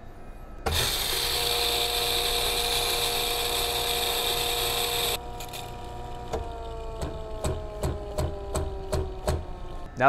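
Mahlkönig Kenia commercial coffee grinder grinding a batch of beans into a paper filter: a loud steady grinding whir for about four and a half seconds, then the motor switches off and its hum falls in pitch as it spins down, with a run of sharp clicks.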